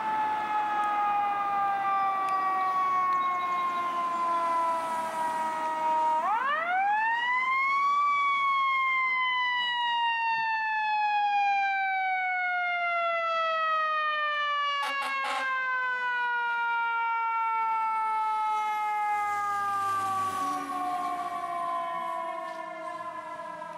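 Fire engine's mechanical siren winding down, spinning back up sharply about six seconds in, then coasting slowly down again as the truck approaches and passes. Three brief horn toots come near the middle, and the diesel engine is heard as the truck goes by.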